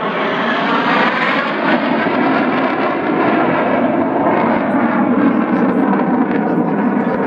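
F-16 fighter jet's engine noise as it flies past overhead, loud and steady, with a sweeping shift in tone about a second in.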